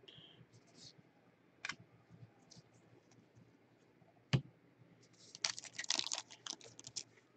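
Trading cards and foil card packs handled with gloved hands: a few light clicks and taps, one sharp knock a little past four seconds in, then about two seconds of crisp crinkling from the foil pack wrappers.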